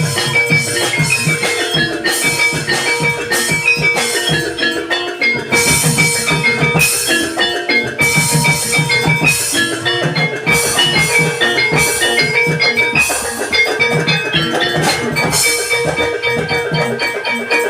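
Gamelan-style music: metallophones playing a fast run of short ringing notes over steady drumming, with a held tone underneath.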